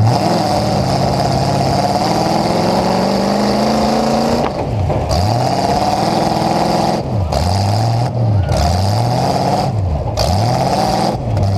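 Engine of a full-size demolition derby truck, heard from inside its stripped cab. It revs up steadily for about four seconds, drops off, then climbs and falls again and again about every second and a half as the throttle is worked.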